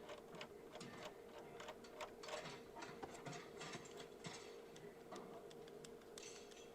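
Faint, irregular clicking and ticking, several clicks a second, over a steady low hum.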